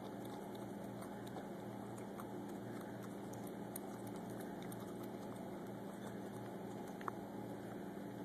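A cat eating from a bowl: faint scattered clicks of chewing and licking, with one sharper click near the end, over a steady low hum.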